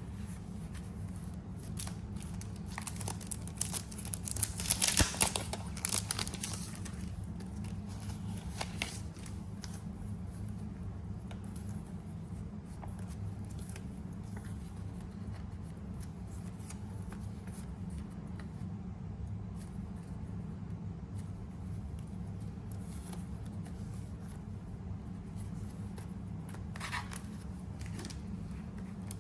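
Paper being cut with scissors: a run of short snips and rasps a few seconds in, and one more near the end.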